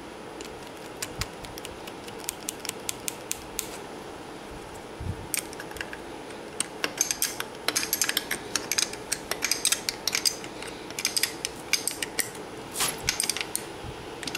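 Light metallic clicks and taps of a wrench on the cylinder base nuts of a Yamaha Banshee twin as they are run down the studs: a few scattered clicks at first, then quick runs of clicking from about halfway on.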